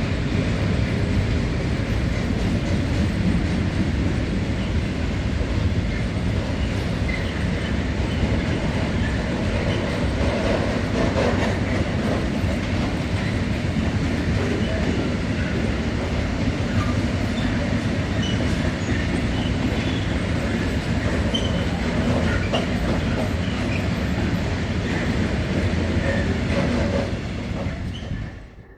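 A train running past on the rails: a steady rumble of wheels and cars with clickety-clack and short high wheel squeals, fading out near the end.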